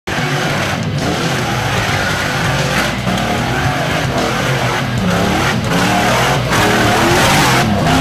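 Off-road rock-crawler buggy's engine revving hard under load as it climbs a steep dirt slope, its pitch rising and falling with several brief drops in throttle.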